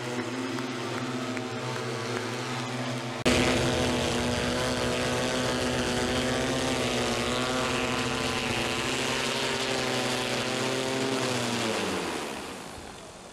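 Hoversurf Scorpion-3 hoverbike's propellers droning with a steady many-toned hum, which jumps louder about three seconds in. Near the end the pitch falls and the sound fades as the rotors spin down with the craft on the ground.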